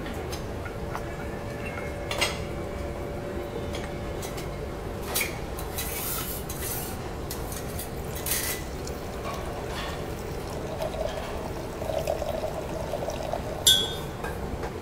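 Red wine being poured from a bottle into a large wine glass, the liquid splashing and filling the glass. A few sharp clinks punctuate it, the loudest near the end.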